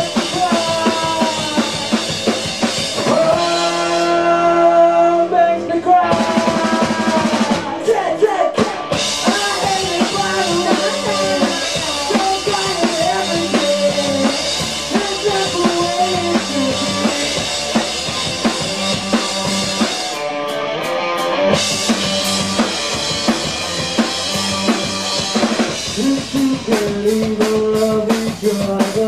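Live rock band playing an instrumental passage: distorted electric guitar lines over bass and a full drum kit. The cymbals drop out briefly twice, about four seconds in and again around twenty seconds in, while guitar notes ring on.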